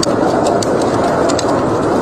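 Wood fire crackling with irregular sharp pops and snaps over a steady rushing blizzard wind.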